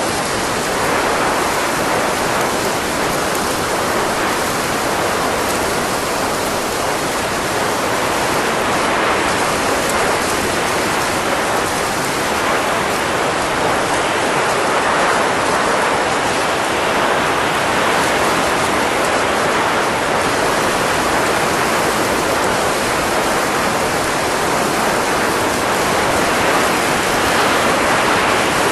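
Steady, even rushing noise like blowing air, unbroken and without any tone or clicks.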